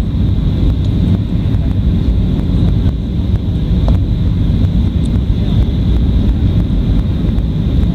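Steady low cabin noise of a jet airliner on its landing approach, the rush of engines and airflow heard through the fuselage from a window seat.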